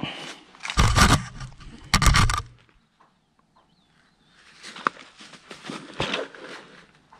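Rustling and scraping of clothing against rope and rock as a climber lowers himself into a narrow hole. There are two loud rumbling bursts about one and two seconds in, then a short hush, then scuffing with scattered clicks.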